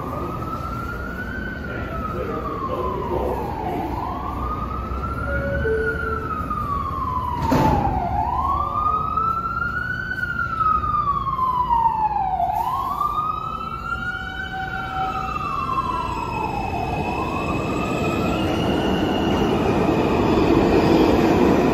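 A siren wails, rising and falling about four times, each cycle taking about four seconds. A New York City subway train pulls out of the station under it, its motor and wheel noise building near the end. There is a single knock about seven and a half seconds in.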